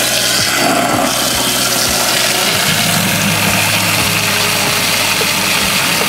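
Water spraying from a garden-hose nozzle into the plastic tub of a portable washing machine and onto the clothes inside, a steady rushing hiss as the tub is filled for a wash.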